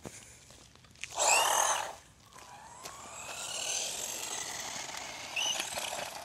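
A fast RC car driving on asphalt: a short, loud burst of motor whine and tyre noise about a second in, then a longer run from about two and a half seconds with the whine rising in pitch, fading just before the end.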